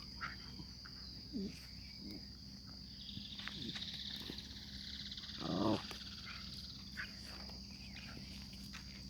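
Insects chirring steadily in a rural background, with a second high buzz swelling in between about three and six seconds. A short pitched call sounds about five and a half seconds in.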